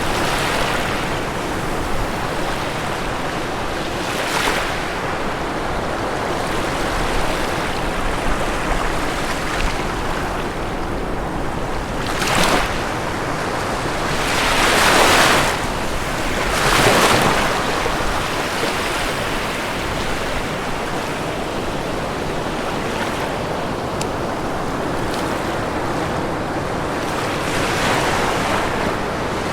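Ocean waves breaking on a shore under a steady wash of surf, with several waves surging louder, two of them close together in the middle.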